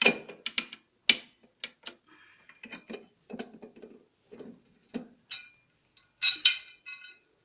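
A hand tool working loose the screws on a top-load washing machine: a run of sharp metallic clicks and short rattles, with a louder ringing metallic clatter about six seconds in.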